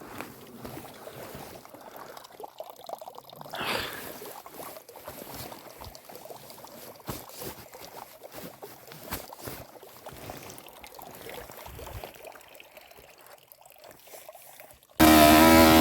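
Faint, irregular crackling and trickling with no engine running. About a second before the end, a Rieju Drac 50's small two-stroke engine cuts in suddenly and runs loudly.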